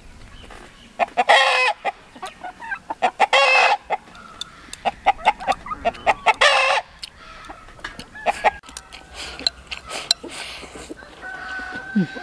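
Chickens calling: three short, pitched squawks a couple of seconds apart, then a longer, steadier call near the end. Between them come light clicks of chopsticks against a ceramic bowl as someone eats.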